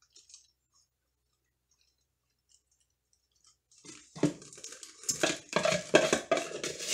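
Near silence at first, then from about four seconds in a quick run of scrapes and knocks: a table knife scooping chocolate buttercream out of a tub, clattering against the tub's sides and the spoon standing in it.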